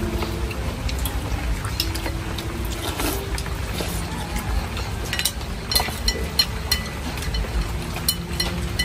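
Steady rain with a low wind rumble, and spoons clinking against bowls every so often, most often in the later part.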